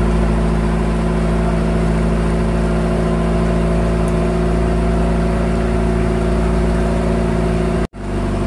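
Small boat's engine running steadily under way, a constant hum that drops out for an instant near the end.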